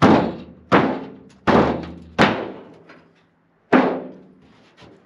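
Five blows to the caved-in steel roof of an old truck cab, struck from inside to push the dent back out. Each is a sharp thump with a short ringing tail; the first four come about three-quarters of a second apart, then a pause before the fifth.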